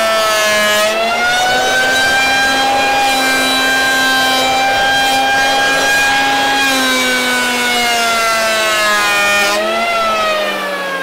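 Triton 180 mm electric hand planer running as it planes a slab of wet hardwood. Its motor whine sags in pitch and recovers as the blades bite and ease off, then winds down near the end.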